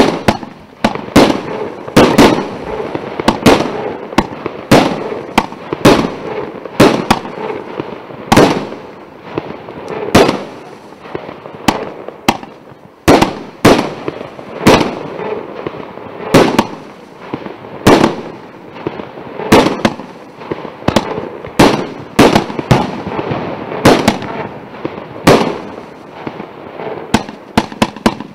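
A 150-shot, 1-inch-calibre fan fireworks cake firing shot after shot, a sharp bang every half second to a second, with a steady hiss between the shots.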